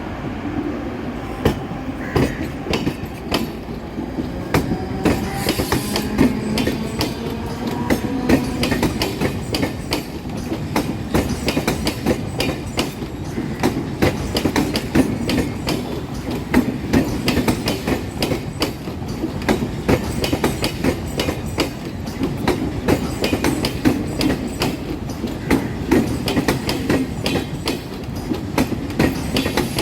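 Mumbai suburban electric local train running along the rails, its wheels clicking steadily and rapidly over the rail joints. A faint gliding whine is heard in the first few seconds.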